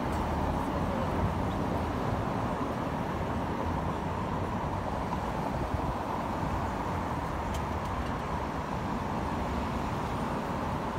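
Steady city traffic noise: a continuous rumble of cars passing on a nearby street.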